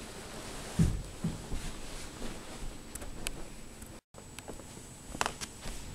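Two soft thumps and rustling as a person climbs off a bed, then a few faint light taps.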